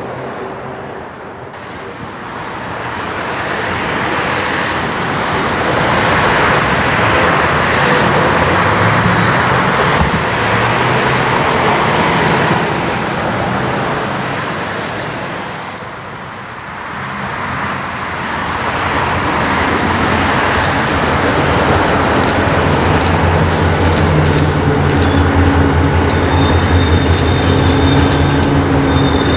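Road traffic passing by, the noise of tyres and engines swelling and fading twice. A heavier engine hum comes up near the end.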